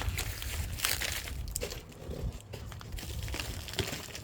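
Packaging crinkling and rustling as the kit's parts and hardware are handled, in irregular bursts with a few light knocks.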